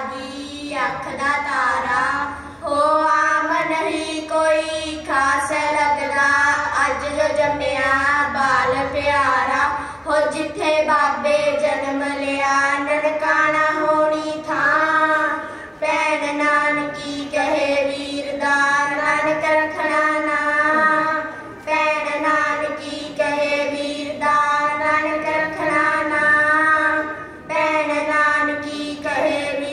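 A boy singing a Punjabi devotional song into a microphone, in long held, wavering notes with short breaks between phrases.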